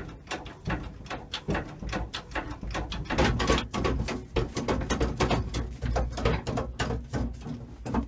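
Case 580E backhoe control levers being worked back and forth, giving a quick, irregular run of clicks, clunks and rattles from the levers and their valve linkages as the hydraulic pressure is relaxed. The clunking is busiest and loudest in the middle, with a low rumble under it.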